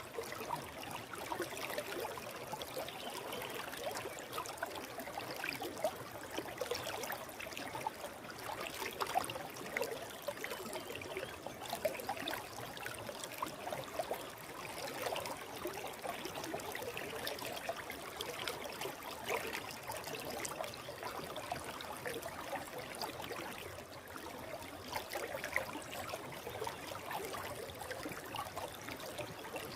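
Stream water running steadily over rocks, a continuous rushing and trickling with small splashes and gurgles throughout.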